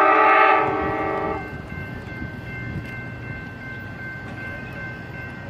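Train air horn sounding a chord of several notes, stopping about a second and a half in. A steady high ringing follows: the grade crossing's warning bell starting up as the signals activate.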